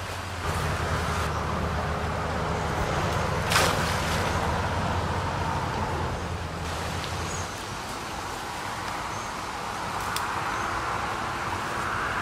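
Steady rush of a high, fast-flowing river. A low rumble runs under it for the first seven seconds or so, and a single sharp knock comes about three and a half seconds in.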